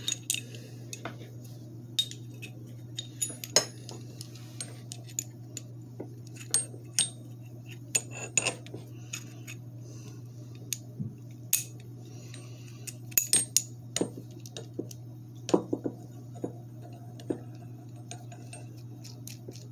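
Small steel puller jaws and fittings clicking and clinking against each other as they are fitted by hand into a slide hammer's three-jaw puller head, in irregular taps with a few louder clinks.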